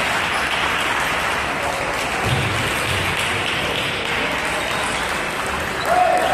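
Spectators applauding steadily, with a held tone starting near the end.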